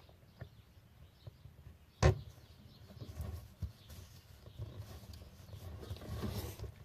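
A replacement clamp lever being fitted to a Boss 18 water-fed pole's clamp by hand: a sharp click about two seconds in, a few light ticks, then soft rustling and fiddling of the parts.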